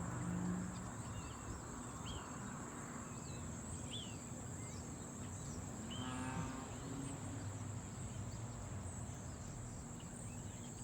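Steady high-pitched chorus of insects, with a few short bird chirps scattered through it and a low hum underneath.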